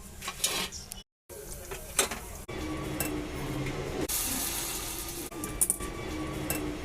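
Kitchen sounds in quick-cut clips: sharp clinks of dishes and utensils, with a stretch of steady hiss in the middle.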